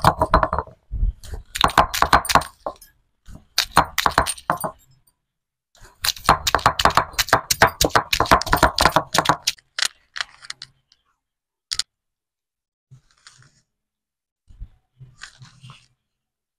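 Stone roller of an ammikkal grinding stone knocking and grinding on the flat stone as ginger and garlic are crushed: rapid clattering knocks of stone on stone in bursts of a couple of seconds, then only a few scattered clicks in the later part.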